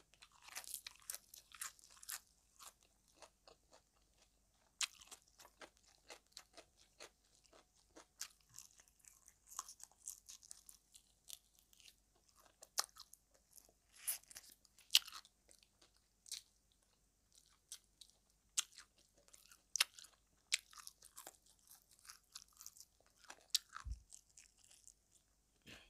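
Close-up chewing and crunching of fish-sauce-fried frog eaten with fresh lettuce leaves: quiet, irregular crisp crunches with a few louder bites.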